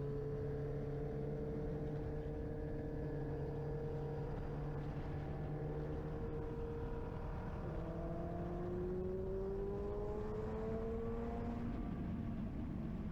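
Motorcycle engine running while riding, a steady engine note that drops in pitch about eight seconds in and then climbs slowly, shifting again near the end.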